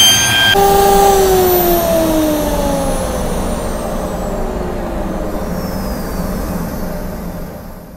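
Table-mounted router with a stile-and-rail bit whining at full speed, switched off about half a second in and winding down, its pitch falling steadily for several seconds. A steady rush and low hum underneath fade away along with it.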